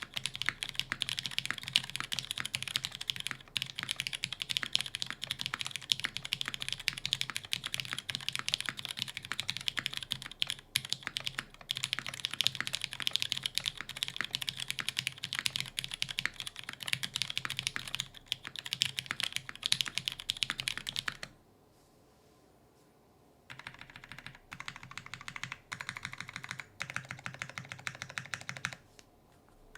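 Typing on an Iron165 R2 mechanical keyboard with lubed Cherry MX Brown Hyperglide tactile switches on an undampened carbon fiber plate with GMK keycaps: a fast, steady run of key clacks. It stops for about two seconds two-thirds of the way through, then resumes more sparsely and pauses briefly again near the end.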